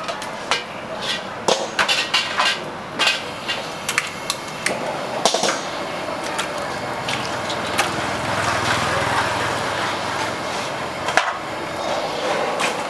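Steel wok spatula scraping and knocking against a carbon-steel wok, with a quick run of sharp metallic clinks in the first few seconds. About five seconds in, a steady rushing noise takes over as water runs from a tap into the wok. Near the end come a few more metal knocks as the wok is moved on the burner.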